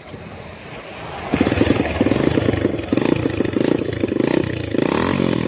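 Old Kawasaki motorcycle engine running and being revved, louder from about a second and a half in.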